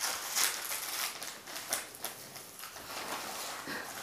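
Border collie biting and tugging at a sticky lint-roller sheet stuck to its front paw, the paper crinkling and crackling in several short spells.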